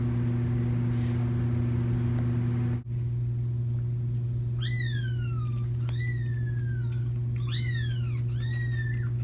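A kitten mewing about four times in the second half, each high call rising sharply and then sliding down. A steady low hum runs underneath throughout.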